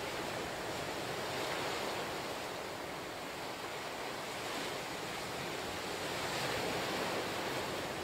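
Ocean surf: small waves breaking among black lava rocks and washing up a sand beach, a steady hiss that swells twice, about two seconds in and again near the end.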